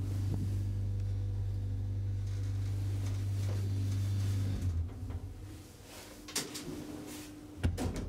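Elevator car travelling with a steady low hum from its drive, which dies away about four and a half seconds in as the car comes to a stop. Two sharp knocks follow a second or so apart, from the stopping and door mechanism.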